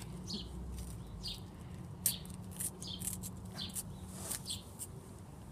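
Paper sticker packet being picked and peeled open by a child's fingers: faint, scattered crinkles and crackles, a few every second.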